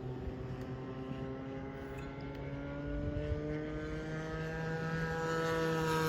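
Radio-controlled model airplane flying, its propeller note steady and then growing louder and slightly higher toward the end as it approaches.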